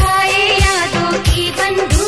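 A Bollywood song: a voice singing a wavering melody over a steady drum beat.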